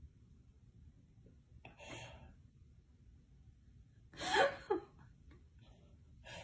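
Two short breathy vocal sounds over a quiet room: a faint one about two seconds in and a louder, gasp-like one about four seconds in.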